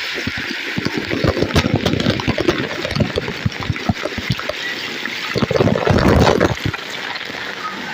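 Water splattering down in irregular heavy drops onto the rider and the camera, over a steady rush of flowing water. A heavier gush comes about five and a half seconds in and stops about a second later.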